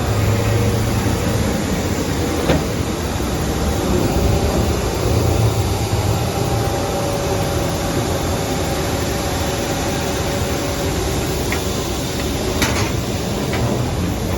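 Steady cabin noise inside an Embraer 175 airliner: an even rumble with a faint steady hum, and a few light clicks.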